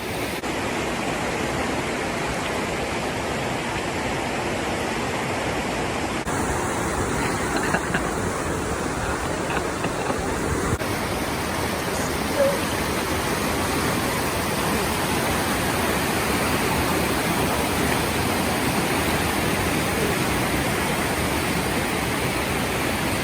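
Steady rushing roar of a waterfall. Its tone shifts abruptly a couple of times.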